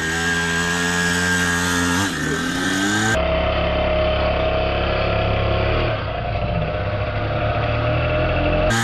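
Small two-stroke engine of a mini pocket bike running under throttle, its pitch jumping up and down in steps, with a brief rising rev about two seconds in.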